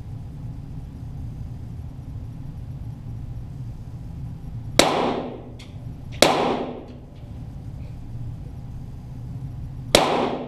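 .22 Walther GSP target pistol shots heard from near the target: three single reports, the first two about a second and a half apart and the third about four seconds later, each with a short echoing tail in the indoor range, over a steady low hum.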